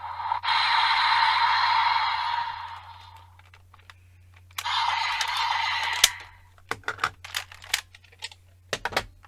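Desire Driver toy belt playing electronic sound effects from its small speaker: a noisy effect that fades out over about three seconds, then a shorter one that ends in a sharp click. A series of plastic clicks follows, from the buckle and belt being handled.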